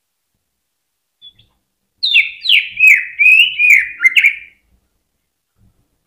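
Green leafbird (cucak ijo) singing: a faint short note, then about a second later a fast run of high, downward-slurred whistled notes lasting about two and a half seconds before it stops.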